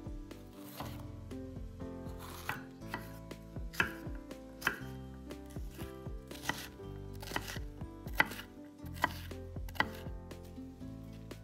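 Kitchen knife chopping on a cutting board, about a dozen irregularly spaced strokes, over soft background music.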